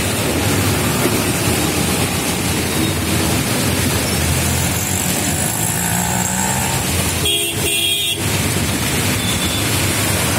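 Busy city traffic passing on a rain-soaked road: car engines running and tyres hissing through water, with car horns honking now and then.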